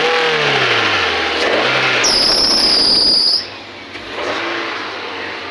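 Ford Figo petrol engine running just after starting on a short crank, its note dropping and rising as it settles, now that the serviced fuel pump delivers fuel. About two seconds in, a high-pitched squeal lasts a little over a second, and then the engine settles to a quieter idle.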